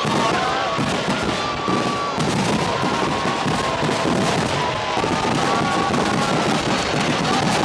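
Fireworks going off in a dense, steady crackle of many small pops, with several whistling tones that waver and overlap above it.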